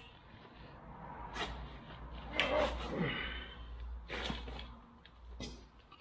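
A few separate knocks and clanks, one followed by a short falling scrape, over a low hum that fades out near the end.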